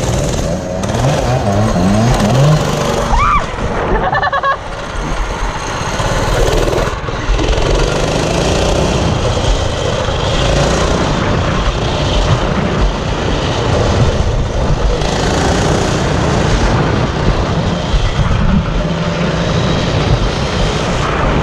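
Baja minibike's small single-cylinder engine running under throttle while riding. Its pitch rises and dips in the first few seconds, then it runs more steadily, with wind buffeting the microphone throughout.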